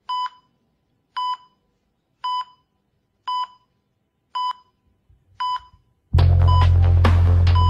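Channel-intro sound effects: six short electronic beeps, about one a second, each a single steady tone. About six seconds in, loud music with a heavy bass starts suddenly, with more beeps running through it.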